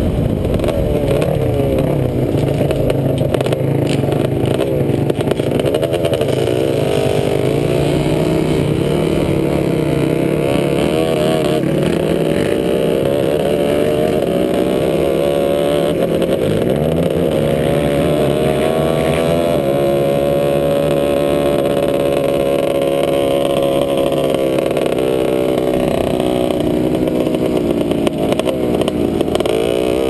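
Sport quad's engine heard from a camera on its own handlebars, running hard across sand, its pitch rising and falling continuously as the rider works the throttle, with a drop and climb back up about halfway through.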